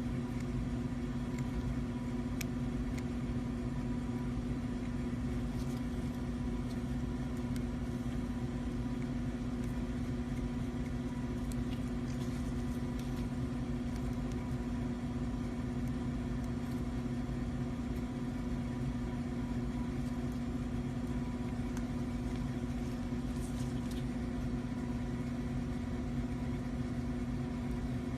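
Steady machine hum at one constant pitch, with a few faint light clicks.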